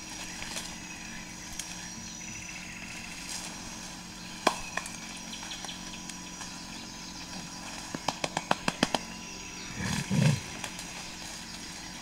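A young gorilla breaking and bending branches in a tree to build its sleeping nest: a sharp crack, then a quick run of about eight cracks about eight seconds in, over a steady rainforest hum. A short low sound follows about ten seconds in.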